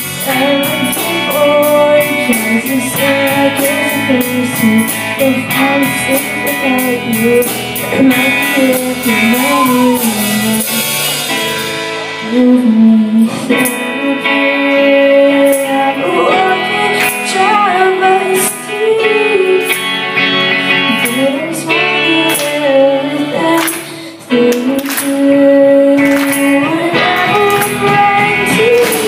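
Rock band playing live through a stage PA, electric guitars, keyboard and drums with cymbals, under a woman singing lead. The band dips briefly about 24 seconds in and comes straight back.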